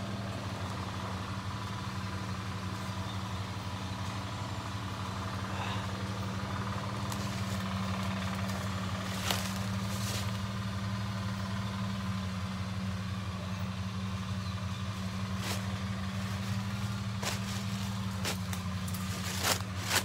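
A steady low mechanical drone runs throughout, with scattered sharp snaps and rustles of twigs and leaves as someone walks through forest undergrowth.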